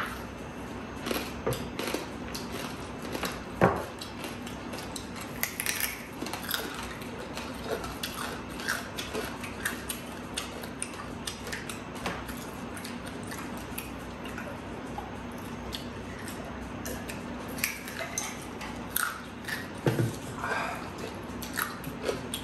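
Eating sounds: crispy fried food bitten and chewed, with scattered crackles and small clicks of pieces handled on a paper-lined tray, and one sharper click about three and a half seconds in. A steady low hum runs underneath.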